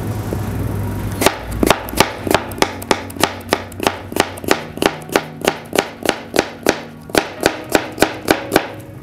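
Kitchen knife slicing an apple into thin slices on a cutting board, the blade knocking on the board in an even rhythm of about three strokes a second, starting about a second in.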